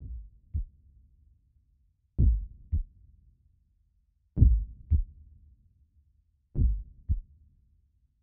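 A slow, deep heartbeat sound effect: four double thuds, lub-dub, about two seconds apart. The first beat is faint and the rest are louder.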